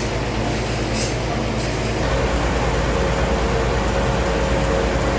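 Sawmill machinery running with a steady low drone. Two short hisses come in the first second, and about two seconds in a steady mid-pitched whine joins as the low rumble grows.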